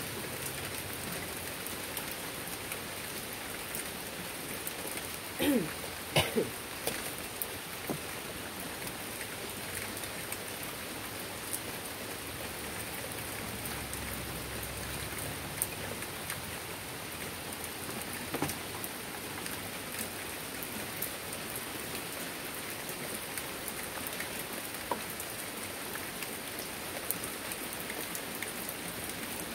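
Steady heavy rain falling on a wet wooden deck and the trees around it, with a few sharper, louder taps about five to six seconds in.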